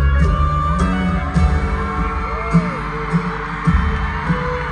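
Live band playing, with drums, bass and guitar and a sung voice, as recorded from the arena audience.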